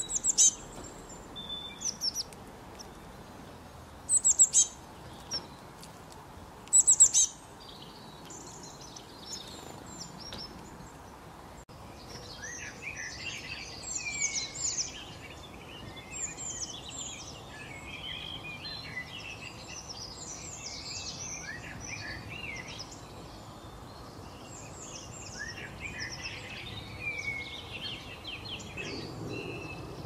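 Songbirds calling: a few loud, sharp, high chirps in the first seven seconds, then from about twelve seconds a busy chorus of many overlapping chirps and calls.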